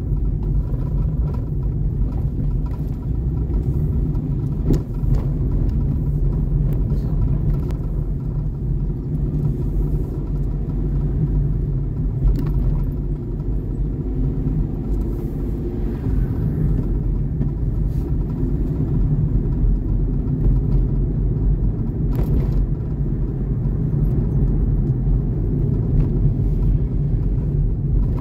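Steady low road and engine rumble of a vehicle driving along, heard from on board, with a few faint clicks.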